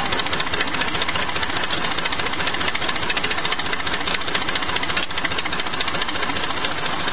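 Tractor diesel engine running steadily with a fast, even clatter, burning a blend of 80% jatropha biodiesel and 20% fossil diesel.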